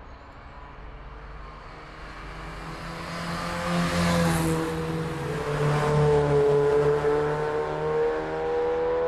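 A car's engine and tyres growing louder over a few seconds, then a steady engine note that rises slowly in pitch and cuts off suddenly at the end.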